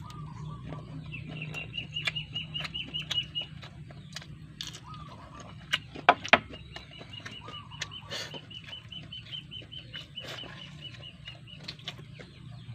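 A bird's rapid, high trill of repeated notes sounds twice, along with a few short clucking calls. Sharp close clicks and taps run through it, with two loud clicks about six seconds in.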